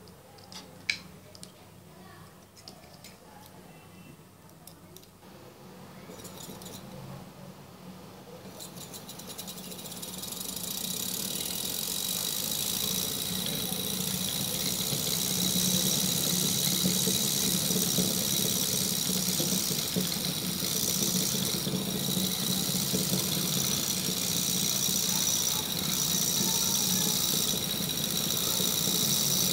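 Homemade two-coil DC motor running steadily once power is put to its brushes, with a whir and a high hiss from the brushes on the commutator. It builds up over several seconds; before that there is light handling and one sharp click.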